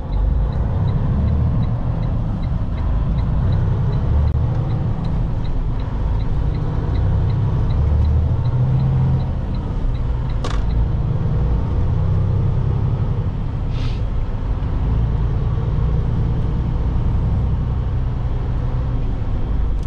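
Steady low rumble of a semi-truck's engine and tyres heard from inside the cab while it drives at highway speed. A light, regular ticking about three times a second runs through the first half, and two brief sharp sounds come a little after the middle.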